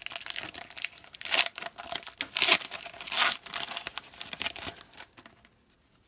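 A football trading-card pack's plastic wrapper being torn open and crinkled by hand, in a run of crackling bursts that die away about five seconds in.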